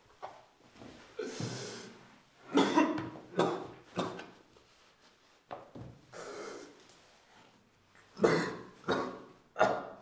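A man coughing repeatedly in irregular fits, with heavy breathing between them.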